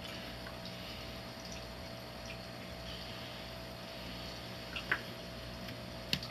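A steady low hum with a faint hiss under it, and two short, sharp clicks near the end.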